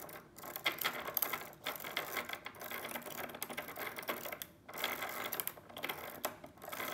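Hand-cranked 3D-printed plastic ratchet-and-bevel-gear mechanism, its pawls clicking rapidly over the ratchet teeth as the gears turn. The clicking comes in runs with several short breaks.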